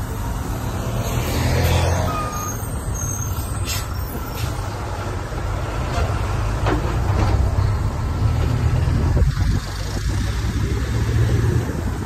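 Minibus engine running at road speed, with wind and road noise rushing in through the open window.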